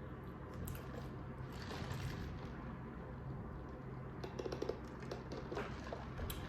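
Faint wet chewing and mouth sounds of someone eating, with scattered soft clicks and a short run of smacks about four seconds in, over a steady low hum.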